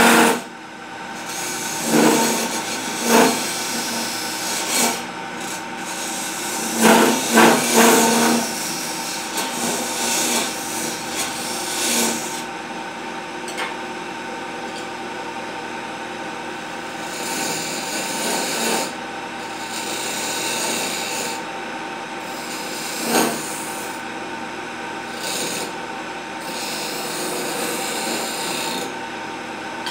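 A wood lathe runs with a steady motor hum while a hand-held turning chisel scrapes and cuts a spinning wooden table leg. The cutting swells louder about 2, 3 and 7 to 8 seconds in, and again near 23 seconds.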